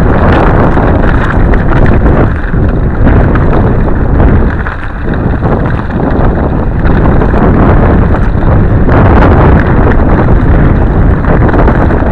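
Heavy wind buffeting on a head-worn camera microphone during a fast mountain-bike descent, mixed with the steady clatter and rattle of the bike rolling over a rocky trail.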